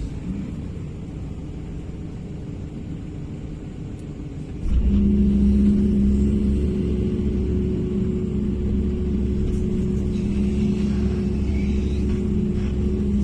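Wheel loader's diesel engine running with a low rumble, growing clearly louder about five seconds in and then holding steady.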